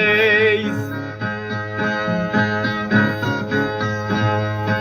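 A singer's held closing note, wavering in pitch, ends just under a second in; then a viola plays a rhythmic plucked interlude between sung verses of a repente.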